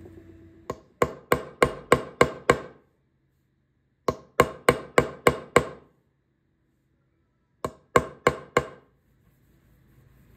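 A hammer tapping a metal punch to drive string-through body ferrules into their holes in a guitar body. There are three runs of sharp, ringing metallic taps, about three a second: seven, then six, then four.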